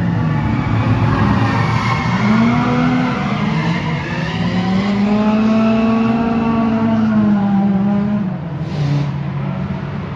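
Drift cars on a race circuit, engines revving hard: the pitch climbs about two seconds in, is held high through the middle, then drops near the end, with tyres squealing.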